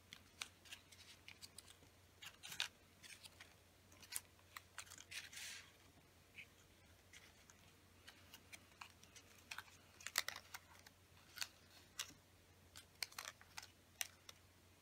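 Folded origami paper modules handled on a tabletop: scattered light taps and crisp rustles of paper as they are set down and pushed into place, with a brief brushing swish about five seconds in.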